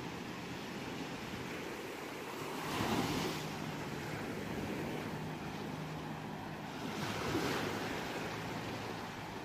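Ocean surf: a steady wash of waves with two waves breaking and swelling up about three seconds and seven seconds in, then fading back.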